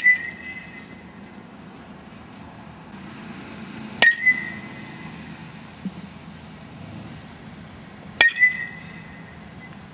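Metal baseball bat hitting balls: a sharp metallic ping with a short ring, about every four seconds: right at the start, about four seconds in, and about eight seconds in.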